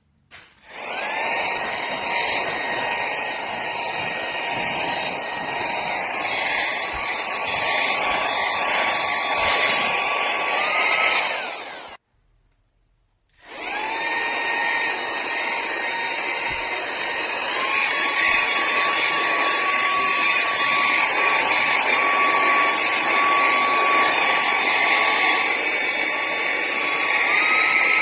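KLYNGTSK cordless handheld vacuum cleaner's motor spinning up with a rising whine and running with a high-pitched whine over a rush of air, stepping up in pitch twice. It switches off about twelve seconds in, starts again a second or so later, and steps up twice more.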